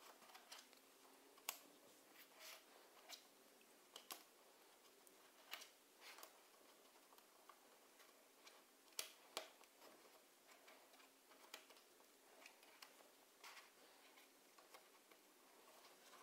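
Cardboard jigsaw puzzle pieces being handled, slid and pressed together on a tabletop: faint, irregular light clicks and taps, the sharpest about a second and a half in and twice in quick succession around nine seconds.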